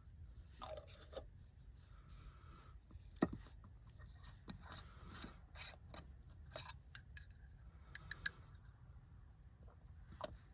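Faint scattered clicks and light scraping as PVC pipe fittings are handled and primer is brushed on, with a sharper click about three seconds in.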